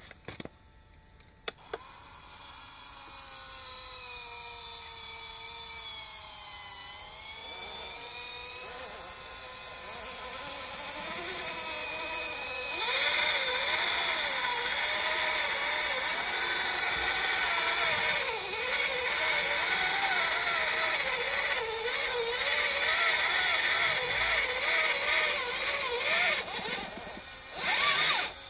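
Electric motor and gearbox of an MN99S 1/12 RC Land Rover Defender crawler whining, pitch wavering up and down as the throttle is worked while the truck is stuck in a muddy rut. It gets much louder about halfway through, and two sharp clicks come near the start.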